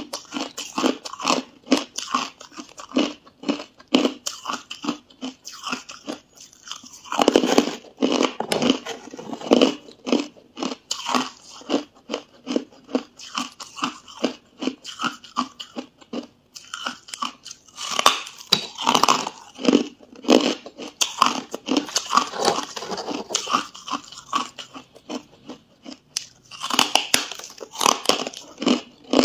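Hard ice being bitten and chewed close to the microphone: runs of sharp crunches and cracks as the teeth break frost-coated ice chunks, coming in bursts with pauses between bites.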